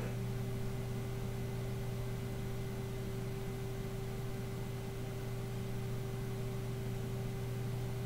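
Steady room tone: a low hum and a faint constant tone over an even hiss, with no events.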